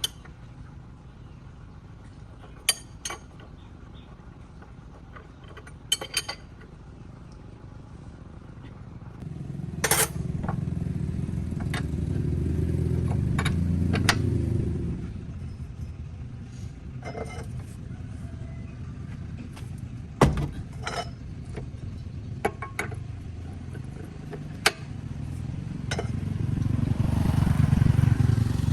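An engine running with a low rumble that swells louder twice, overlaid by scattered sharp metal clinks and knocks.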